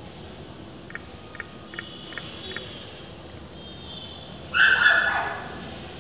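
A dog yelps once, loud and short, its pitch falling away, about four and a half seconds in, after a run of five faint ticks.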